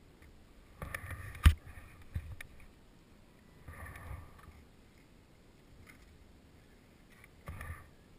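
Skis and poles scraping and crunching on snow and rock in three short bursts. There is a sharp knock about a second and a half in and a smaller one shortly after.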